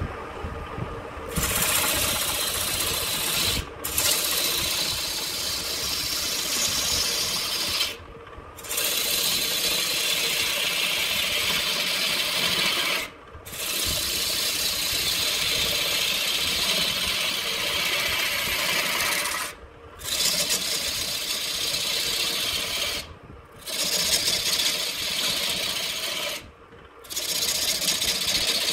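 Hand-held turning tool cutting a spinning red wood blank on a wood lathe: a steady scraping hiss of shavings being peeled off. It breaks off in about six short pauses as the tool is lifted away, with the lathe still running beneath.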